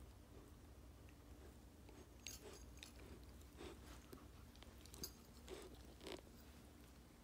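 A teething American Akita puppy chewing and gnawing on a plush toy: faint, irregular crunches and clicks, starting about two seconds in.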